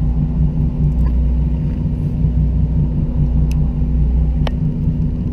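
A fishing boat's engine running, a steady low drone with a couple of faint clicks from gear about three and a half and four and a half seconds in.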